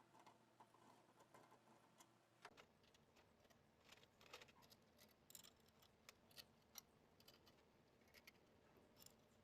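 Near silence with faint, irregular scattered clicks and ticks.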